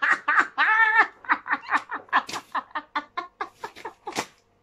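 People laughing hard: a run of short breathy 'ha-ha' pulses, loud at first and growing fainter toward the end.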